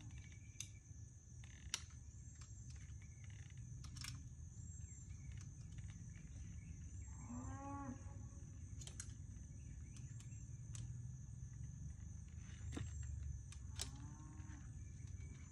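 Faint outdoor background of a steady insect chorus over a low rumble, with a few light clicks from work on the bike. A short voice-like call rises and falls about halfway through, and another comes near the end.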